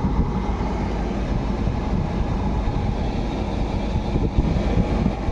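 Ford Figo's engine idling, a steady low running noise with no ticking from the dashboard.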